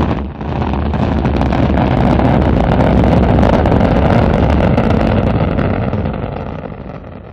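Rocket engine firing in space, a steady loud roar heaviest in the low end, as the upper stage burns after stage separation. It dips briefly just after the start, then fades away near the end.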